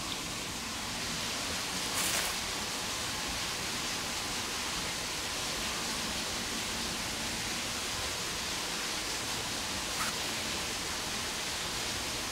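Steady, even rushing hiss of outdoor night ambience, with a brief rustle about two seconds in and a faint click near the end.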